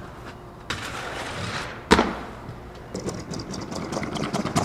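Skateboard wheels rolling on concrete, with one loud sharp clack of the board about two seconds in, then more rolling with scattered clicks.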